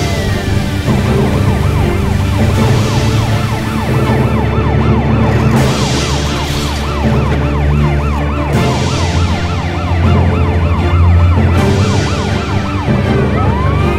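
Emergency-vehicle siren, mostly a fast yelp of rapid rising and falling wails, with slower long wails near the start and near the end, over background music with a steady beat.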